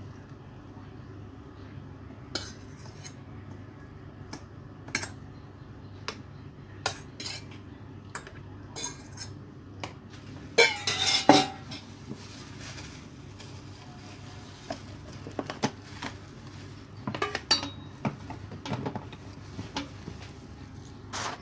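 A metal bowl and utensil clinking and knocking as the rest of the ingredients are scraped into a plastic food-chopper bowl, with the loudest clatter about halfway through. More knocks come near the end as the chopper is closed.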